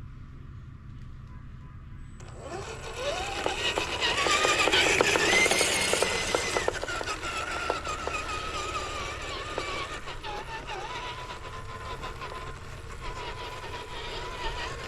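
Radio-controlled scale crawler truck's electric motor and gears whining as it drives. Starts about two seconds in, rises in pitch as it speeds up, then eases back to a steady lower whine with small dips.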